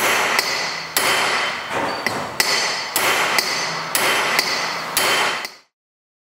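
Hammer tapping a tubular driver tool seated on a valve guide in an aluminium cylinder head. The sharp metallic taps come in pairs about once a second, each ringing briefly over steady shop noise. The sound cuts off abruptly after about five and a half seconds.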